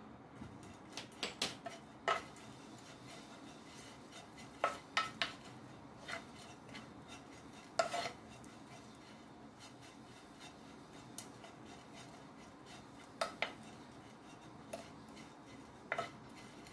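Spatula knocking and scraping against a frying pan while stirring small dried anchovies, in scattered clusters of sharp clicks and taps.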